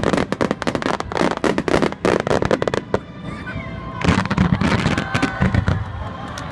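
Fireworks finale: rapid volleys of shell bursts and crackling, easing off briefly about halfway through before the bangs start again.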